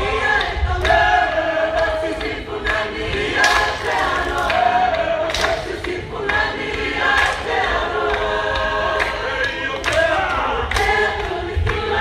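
A Tongan lakalaka song sung by many voices together as a choir, without a break.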